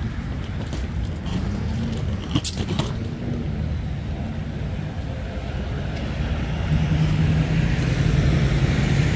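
City street traffic: a motor vehicle's engine running close by, with a steady hum that grows louder from about seven seconds in. A few sharp clicks come about two and a half seconds in.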